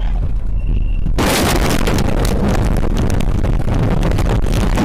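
A truck crashing at highway speed, heard from inside its cab: engine and road rumble, then about a second in a sudden loud impact that runs on as continuous crunching, scraping and rattling while the cab is thrown about.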